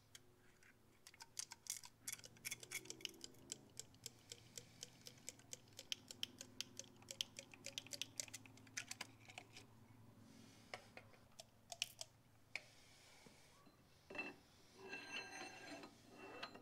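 Faint, rapid clicking of a thumb-pump oil can as it squirts automatic transmission fluid into a forklift wheel hub. Near the end comes a brief metallic clatter with a slight ring.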